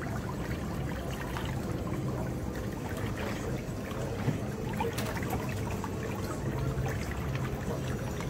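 Pedicure spa tub's whirlpool jets churning the foot-soak water, a steady bubbling wash over a low motor hum.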